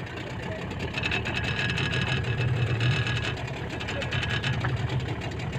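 Small fishing boat's engine running steadily under way, a low even drone.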